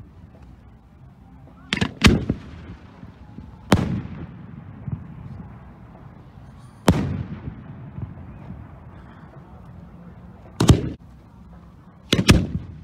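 Aerial firework shells going off: about seven sharp booms at uneven spacing, two of them in quick pairs, each trailing off in a rumbling echo.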